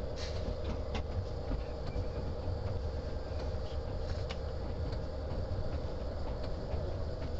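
Alstom-Siemens BB 75000 diesel-electric locomotive's MTU V16 diesel engine running steadily, heard from inside the cab, as a deep rumble with a steady hum over it and a few light clicks scattered through.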